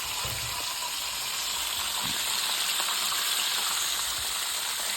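Chicken thighs frying in avocado oil in a skillet: a steady sizzle.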